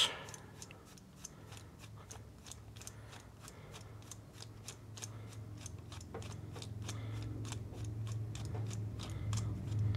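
Ratcheting screwdriver clicking lightly and steadily, about three clicks a second, as it backs a loosened jet out of a small-engine carburetor.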